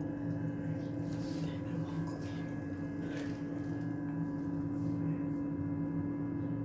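Self-service milk vending machine running with a steady hum of several fixed tones.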